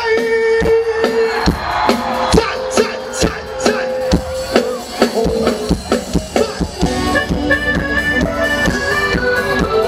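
Live band playing through a stage sound system, with regular drum hits under held melodic notes; a run of short higher notes comes in about seven seconds in.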